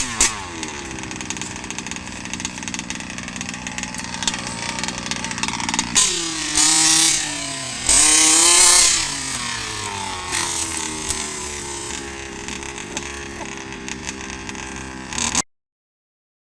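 A 1:5-scale RC buggy's 26 cc two-stroke engine running and revving up and down as the buggy drives. About halfway through come two loud bursts of hiss. The sound cuts off suddenly about a second before the end.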